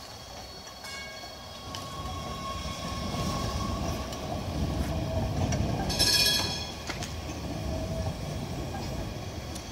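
Modern articulated low-floor tram rolling past on depot track, its wheels and running gear rumbling louder as it draws level. About six seconds in there is a brief shrill, ringing screech.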